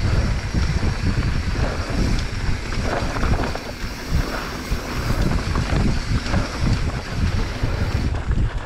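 Wind buffeting the microphone over the rumble of mountain bike tyres on a dirt singletrack descent, with frequent small knocks and rattles from bumps in the trail.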